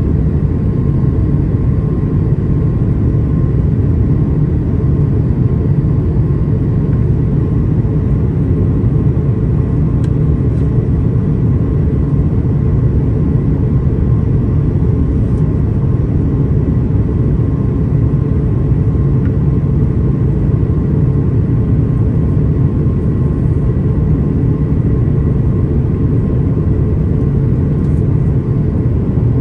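Steady, even rush of engine and airflow noise inside the cabin of an Airbus A350 in flight, powered by Rolls-Royce Trent XWB turbofans. The noise sits mostly low, with a faint steady tone over it.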